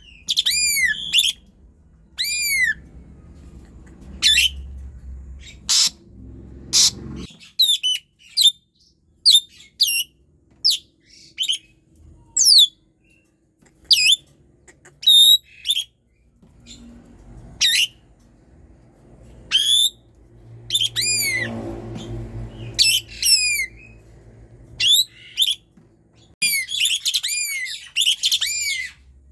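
Pied starling (jalak suren) singing hard: a continual run of sharp, arched whistled notes and harsh calls, crowding into a fast, dense burst near the end.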